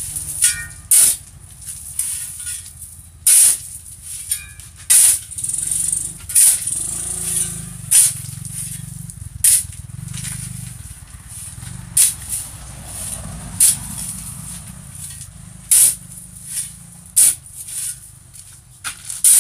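Steel shovel scraping and scooping through a heap of cement mix on a concrete floor, in repeated gritty strokes about every one and a half seconds.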